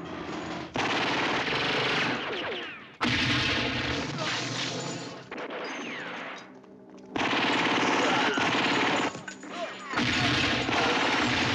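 Film gunfight: long stretches of rapid automatic gunfire and shots, broken by brief lulls about three seconds in, around six to seven seconds, and just after nine seconds.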